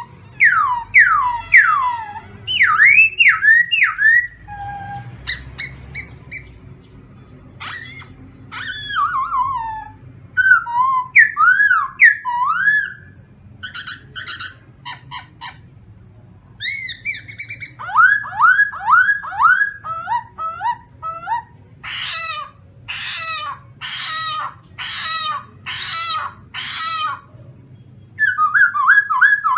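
Khướu mun laughingthrush singing a string of loud whistled phrases. The phrases are made of sliding notes, with runs of quickly repeated notes and short pauses between them.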